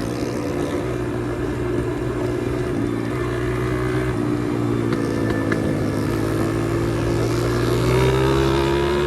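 Pit bike's small single-cylinder engine running under way, its pitch rising and falling with the throttle. It revs higher and louder near the end.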